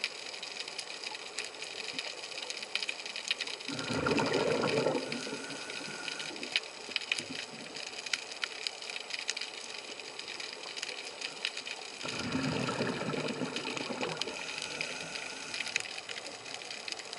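Scuba diver's exhaled bubbles from the regulator rushing up past the camera twice, about eight seconds apart. Between the breaths a steady underwater crackle of fine clicks.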